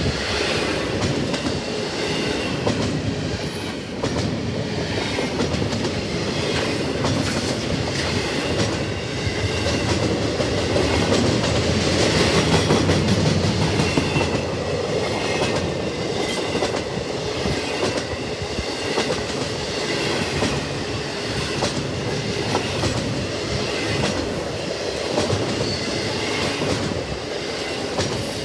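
Double-stack container freight train cars rolling past, wheels clicking steadily over the rail joints, with a faint squeal of wheels on the rails.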